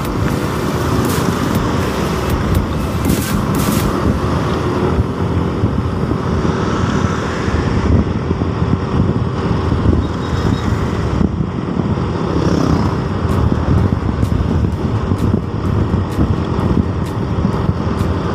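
Steady, loud road noise of a motorcycle ride in traffic: the engine running and wind rumble, with other vehicles passing.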